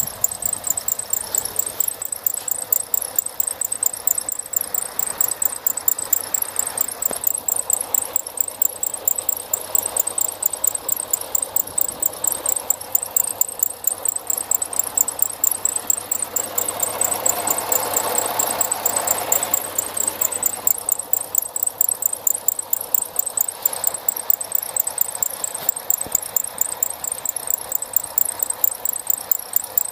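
A car alternator's overrunning clutch pulley squeaking in a fast, even series of high-pitched chirps over the running engine, the sign of a failing alternator clutch. The sound swells louder for a few seconds a little past halfway.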